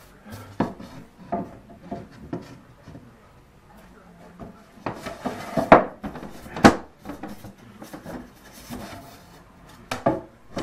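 Wooden back panel being handled and pushed into place in a walnut cabinet case: scattered wooden knocks and some rubbing, the loudest knocks a little past the middle.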